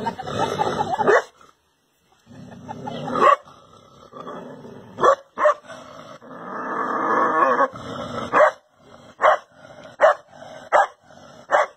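A dog barking at its own reflection in a mirror: low growling and a few single barks, then five sharp barks in quick succession near the end.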